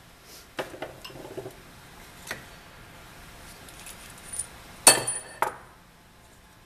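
Steel marking stamp and other metal workshop tools being handled and set down on a steel plate and wooden workbench: a few light clinks and knocks, then a louder metallic clatter with a brief ring about five seconds in.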